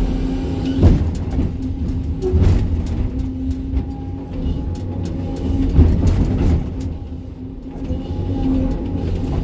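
Sany SY305 excavator's diesel engine running steadily under load as it digs and loads rocky spoil, with a few sharp knocks of rock against the steel bucket.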